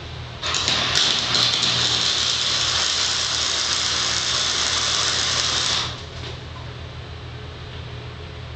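Flux-core wire-feed welding arc (90-amp welder) crackling and sizzling steadily for about five seconds while tacking light-gauge steel studs, starting about half a second in and stopping abruptly before the six-second mark. A low steady hum carries on underneath throughout.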